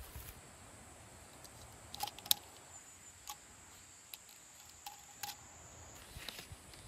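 An insect's thin, steady high-pitched trill that stops about six seconds in, with a few light clicks and clinks scattered through it, two close together about two seconds in being the loudest.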